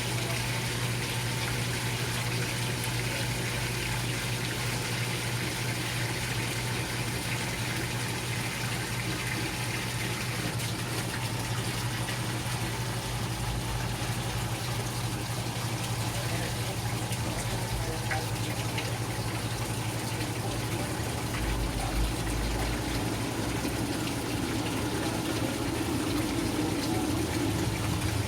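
GE Filter-Flo washing machine running, a steady motor hum under the constant rush of water moving through the tub.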